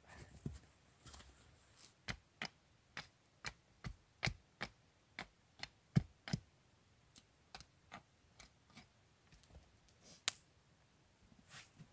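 A small hatchet chopping into a short upright stick of wood in quick, light strokes, about two or three a second. The strokes then slow and scatter, with one sharper strike near the end.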